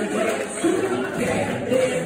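Small live crowd cheering and shouting, with many voices overlapping.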